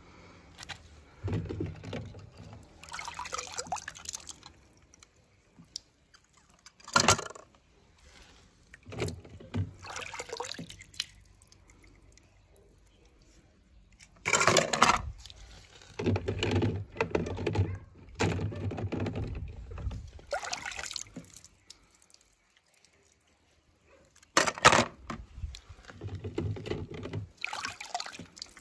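Water splashing and sloshing in a plastic tub in irregular bursts as small die-cast toy cars are dipped and moved about in it, with a couple of short, sharper splashes.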